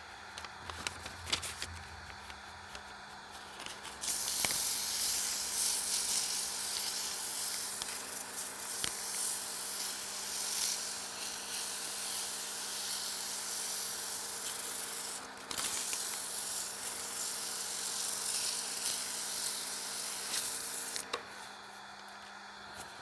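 280-grit sandpaper held against a walnut handle spinning on a wood lathe: after a few rustles and clicks, a steady hiss starts about four seconds in. It breaks off briefly past the middle and stops a couple of seconds before the end. A low, steady lathe motor hum runs underneath.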